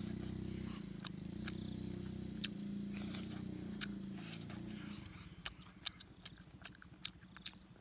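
Wet smacking and clicking of chewing as roasted duck meat is bitten and torn. A low, steady drone runs underneath until about five seconds in, then fades out.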